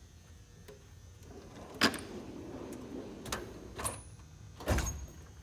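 Metal tool chest drawers sliding along their runners and being shut and opened, with a rumbling slide, a sharp clack about two seconds in, a few more clicks and a heavier thud near the end.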